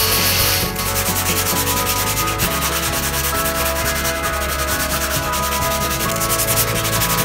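Wooden axe handle being sanded: an angle grinder with a sanding disc runs against the wood and stops under a second in, then the handle is rubbed by hand with a steady scratchy sound.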